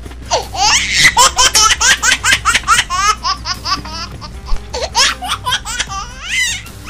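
A baby laughing in quick runs of high-pitched giggles. There is a short break a little past the middle, then a second run of laughter.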